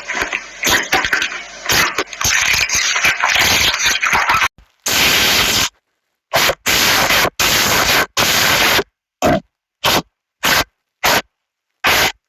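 Slime being played with close to the microphone: a dense run of crackling and popping, then a string of short hiss-like squishes, each under a second and cut off sharply with silence between.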